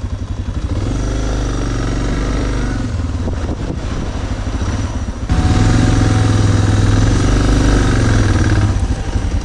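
Motorcycle engine running under way on the road, steady, then getting louder about five seconds in.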